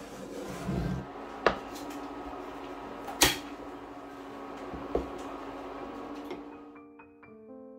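Nonstick frying pan being handled and set on the stove hob, then a glass lid put on it: three sharp clunks, the loudest about three seconds in, over a steady sizzling hiss from the hot pan.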